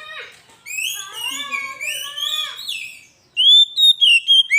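Oriental magpie-robin (kacer) singing: a run of quick, varied warbling notes, then after a short pause a louder series of clear whistled notes.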